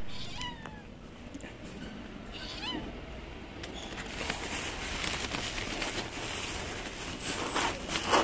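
A stray cat meowing twice, two short calls in the first three seconds. From about four seconds in there is a rustling, scuffing noise with a louder scrape near the end.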